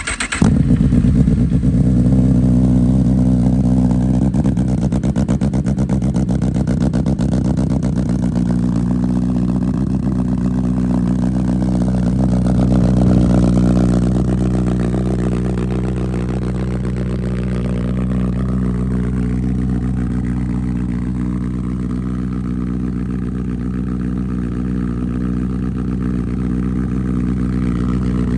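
Honda CB1000R's inline-four engine with a CS Racing full aftermarket exhaust, cold-started: it fires at the very start and runs at a steady idle that eases slightly lower about fourteen seconds in.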